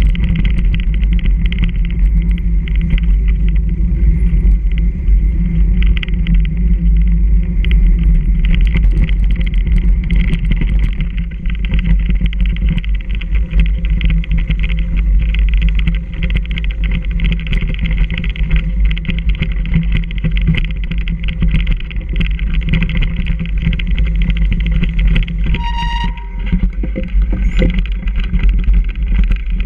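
Mountain bike ride heard from a bike- or rider-mounted camera: a steady loud rush of wind and the constant rattle and jolting of the bike over a rough, snow-covered trail. About 26 seconds in, a brief high squeal rings out.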